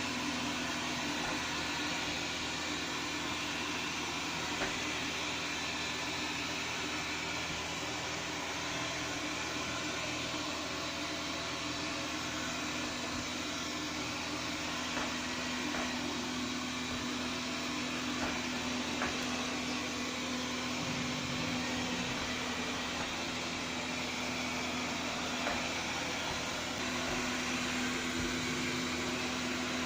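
Xiaomi Mi Robot Vacuum-Mop P running: a steady whir from its suction fan with a constant hum, and a few faint ticks now and then.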